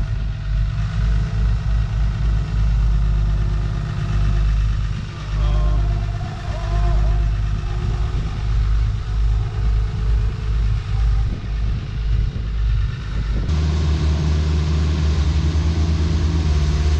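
Heavy excavator diesel engine running with a low, pulsing drone; its note changes abruptly about thirteen seconds in.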